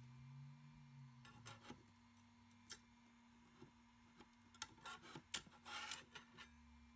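Ultimaker 2GO 3D printer: a steady faint hum, with a low motor tone that ends about a second and a half in, followed by scattered sharp clicks and scrapes that come thickest about five to six and a half seconds in.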